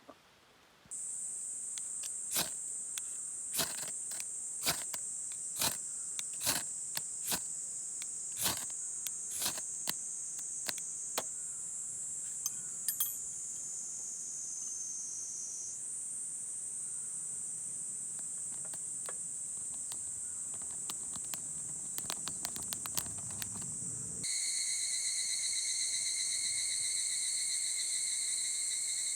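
Night chorus of crickets and other insects, a steady high trilling, with sharp crackling pops from a wood campfire through the first half. About 24 seconds in the chorus switches abruptly to a different one with lower steady tones added.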